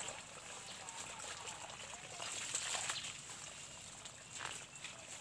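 Footsteps rustling through dry leaf litter, with faint running water from a garden hose and a steady high-pitched whine.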